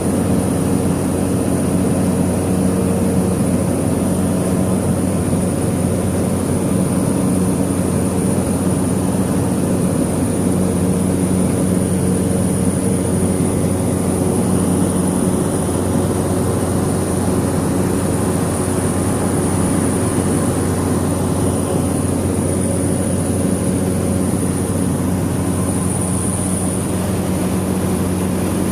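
Cessna 208 Caravan's Pratt & Whitney PT6A turboprop engine and propeller heard from inside the cabin: a steady, loud drone with a thin high whine held above it.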